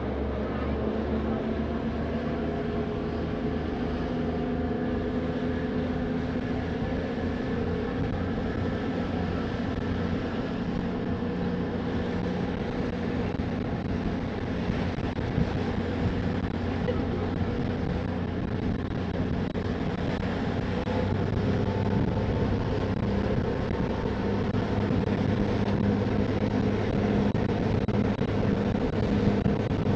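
Passenger ferry under way, its engines droning steadily under a rushing wash of noise; the engine hum shifts and grows a little louder about two-thirds of the way through.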